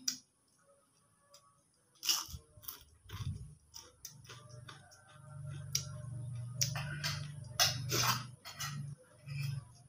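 Close-up chewing of crisp rempeyek (fried cracker) with rice: irregular crunches, loudest about two seconds in and again near eight seconds. A low hum runs underneath from about four to nine seconds in.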